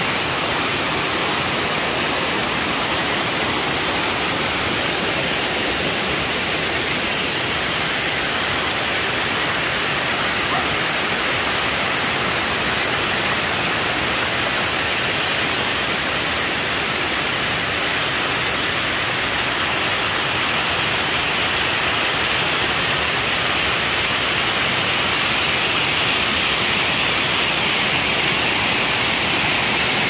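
Waterfall: water cascading over rock ledges into a pool, an unbroken rushing that grows slightly louder and brighter in the last third.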